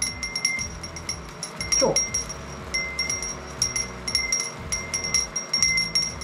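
Glass furin wind chime ringing rapidly and irregularly, its clapper struck again and again by the wind from a Makita CF102DZ cordless fan. The fan's steady running noise sits underneath.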